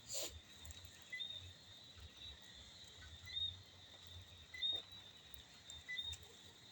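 A steady high-pitched chorus of insects or frogs, with short chirps rising out of it about once a second. A brief sharp noise just after the start is the loudest sound, and there is a faint low rumble.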